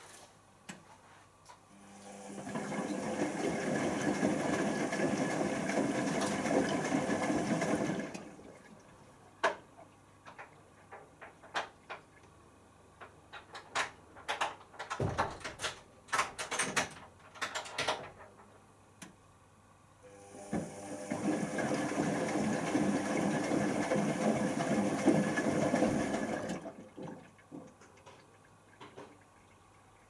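Zanussi ZWC1300 compact washing machine on its final rinse: two bursts of rushing water, each about six seconds long over a low hum. Between them the drum turns with a run of light clicks and knocks.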